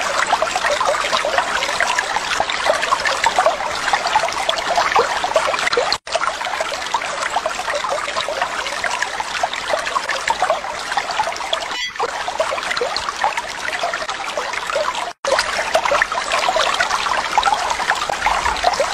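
Trickling, running water, steady throughout, cut off for an instant twice.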